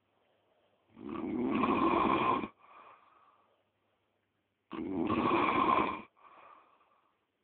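A man snoring loudly: two long snores about three and a half seconds apart, each followed by a short, much fainter sound.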